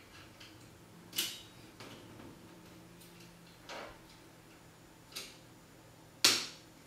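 Plastic connector pieces of a Chaos Tower marble-run set being snapped together by hand: four separate sharp clicks, the last the loudest.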